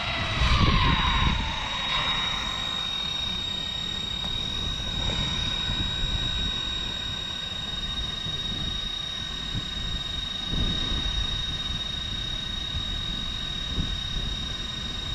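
Arrma Limitless RC speed-run car whining like a jet, the pitch falling over the first couple of seconds as the car slows to a stop. A steady high-pitched whine then carries on over low wind rumble on the microphone.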